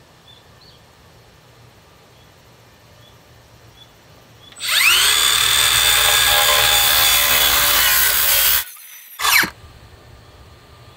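Circular saw spinning up about halfway in and cutting through a wooden frame for about four seconds, then stopping abruptly. A second later the motor gives one short burst whose pitch falls away.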